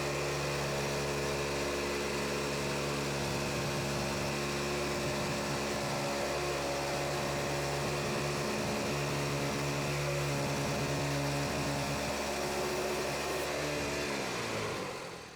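Wood-Mizer LX25 sawmill's engine running steadily, then shut off near the end, its pitch sliding down as it winds to a stop.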